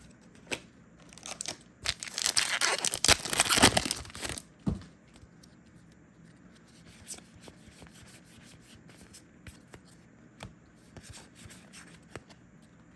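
A foil booster pack wrapper torn open: a crinkly tearing starting about two seconds in and lasting some two seconds, followed by a sharp click and faint scattered clicks.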